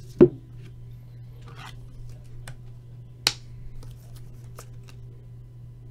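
Sharp clicks and taps from trading cards being handled and set down: a loud one at the start, another about three seconds in and a few faint ticks, over a steady low hum.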